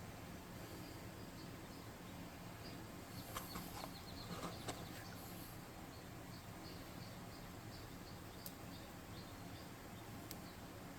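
Quiet room with a steady low hum, a few small clicks and rustles from handling craft materials, clustered about three to five seconds in, with single ticks later, and faint short high chirps in the background.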